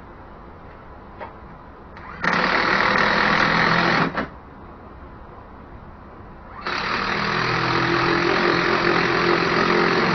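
A cordless power driver runs in two steady bursts, one of about two seconds and then a longer one of about three and a half seconds, turning the clamp at the lower end of a van's fuel-tank filler hose.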